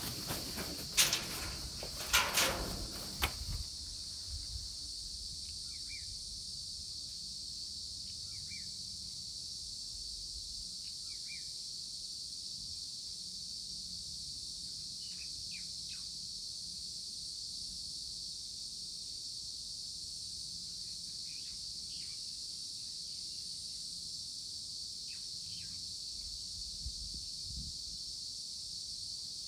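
Steady high-pitched chirring of insects, with a few loud knocks and rustles in the first three seconds and some faint, short bird chirps later on.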